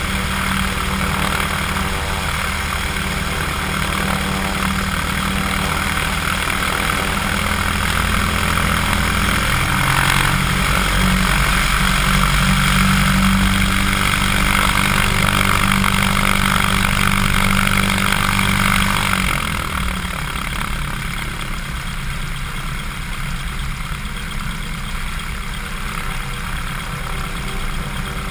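Cessna 150's Continental O-200 four-cylinder engine and propeller running at low taxi power. The engine gets a little louder about ten seconds in, then drops back to a quieter, lower setting shortly before twenty seconds.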